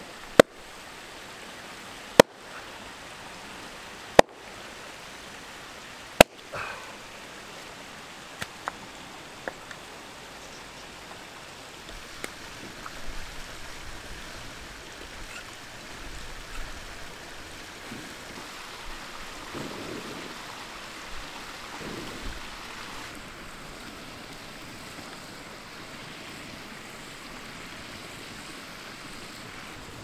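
Four sharp hatchet strikes into wood, about two seconds apart, splitting firewood, over the steady rush of a mountain stream. After them the stream runs on with only small scattered knocks and rustles.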